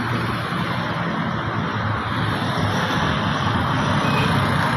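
Steady loud outdoor background noise, an even rumble and hiss with no distinct machine rhythm, with a short faint high beep about four seconds in.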